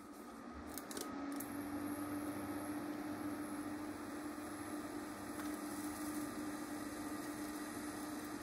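Home-made thermoacoustic heat engine of stacked tin cans on an induction cooktop, oscillating with a steady low hum that sets in about half a second in. It runs over the even whirring of the hob's cooling fan.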